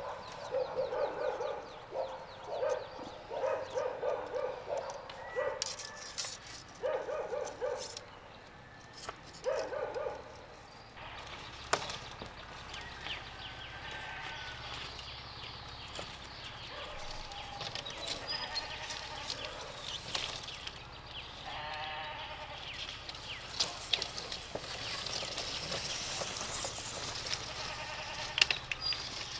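A farm animal calling over and over in short calls through the first ten seconds or so, then a quieter steady outdoor background with a few faint calls and chirps.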